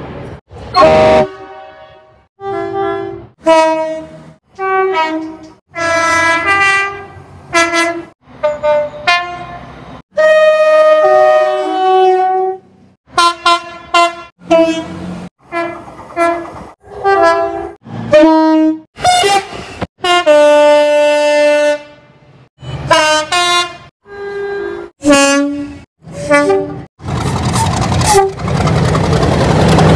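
A rapid run of British train horns, some twenty short blasts from different trains cut one after another, many of them two notes that step up or down in pitch. Near the end a diesel locomotive passes close by with a loud, even rumble.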